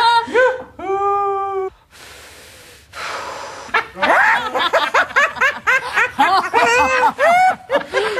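High, squeaky puppet voices giggling and snickering in quick runs, starting about four seconds in. Before that come a short held vocal note and about a second of hiss.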